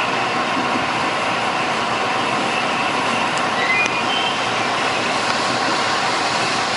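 Passenger train running along the line, heard from inside the carriage: a steady rush of wheel and track noise.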